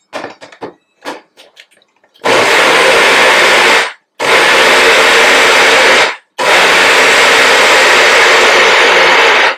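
Bullet-style personal blender: a few clicks and knocks as the cup is seated on the motor base, then the motor run in three short bursts, with the third the longest. It is pulsing fresh basil into a thick roasted red pepper sauce, kept brief so the basil is chopped rather than pureed.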